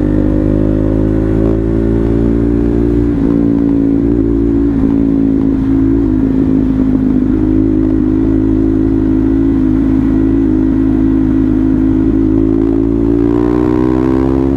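KTM Duke 390's single-cylinder engine running at nearly constant revs. The pitch sags slightly a few seconds in, then climbs again near the end as the throttle opens.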